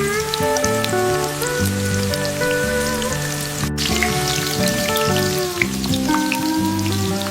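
Background music: a gentle melody of held notes over low sustained tones, with a light scatter of tiny clicks throughout and a brief dropout about halfway through.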